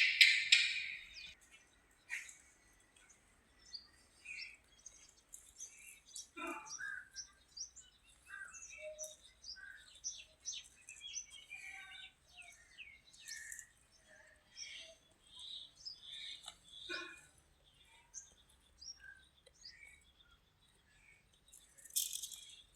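Small birds chirping and singing, many short calls and quick pitch slides overlapping one another. A brief loud rustling noise opens it, and a shorter one comes near the end.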